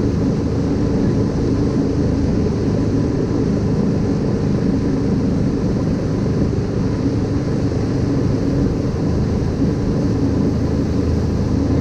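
Wakesurf boat's inboard engine running steadily under way, with wind and water noise mixed in.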